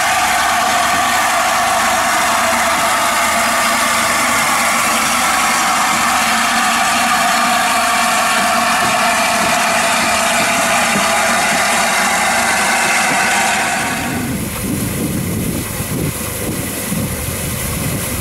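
Standing LNER A4 steam locomotive 60007 Sir Nigel Gresley hissing steam loudly and steadily. The hiss stops abruptly about fourteen seconds in, leaving a lower, uneven rumble.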